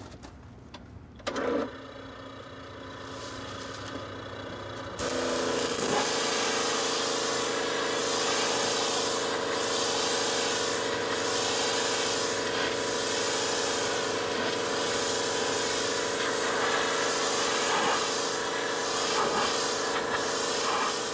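Gas-engine pressure washer: its small engine runs steadily after a short loud burst about a second in. About five seconds in the loud hiss of the high-pressure water jet starts and holds, rising and falling as the spray sweeps across the trailer.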